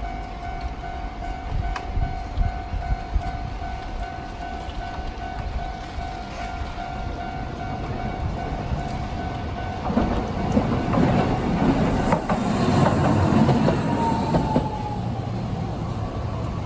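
Japanese level-crossing warning signal, the old standard electronic bell type, repeating at a fast rate in a steady pulsing ding. About ten seconds in, a Toden Arakawa Line streetcar passes with a low rumble and a motor whine that slowly falls in pitch.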